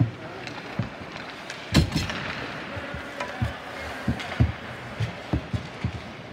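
Ice hockey play: irregular knocks and thuds of sticks and puck on the ice and boards, with one louder sharp crack about two seconds in, over a steady arena background.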